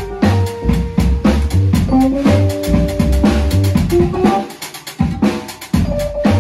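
Live drums and keyboard: a drum kit played with sticks in a steady beat, with a heavy low thump and sharp snare hits, over held keyboard notes. The beat drops out briefly just past the middle, then comes back.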